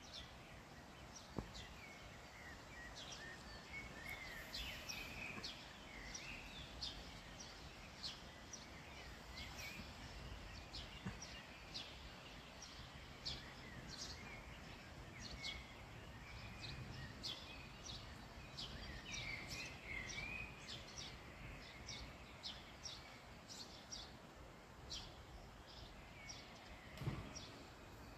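Birds singing outdoors: many short, high chirps, several a second, mixed with warbling phrases, over a steady background hiss. A brief knock sounds about a second and a half in and another near the end.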